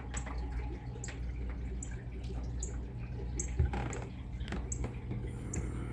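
Aquarium filter running: water trickling and dripping over a steady low hum.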